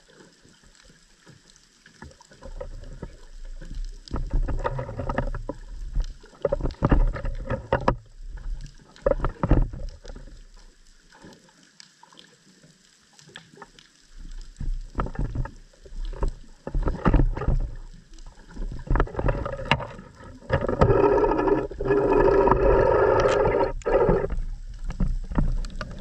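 Underwater camera housing picking up water moving and knocking against it, in irregular bumps and low rumbles. From about five seconds before the end, a louder pitched whirring sound runs for a few seconds.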